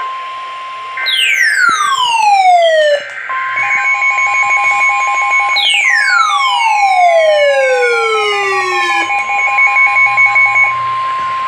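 Emergency Alert System signal heard over AM radio: short bursts of warbling data tones, then a steady high tone with pulsing tones under it. Two long whistles fall steeply in pitch, about one second in and again about six seconds in.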